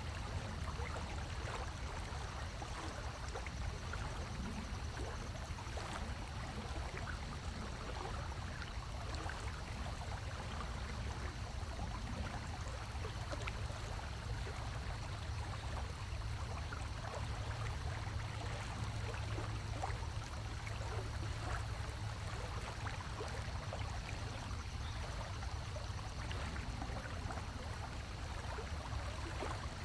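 Water running and trickling steadily, like a creek, with many small splashes and a steady low rumble underneath.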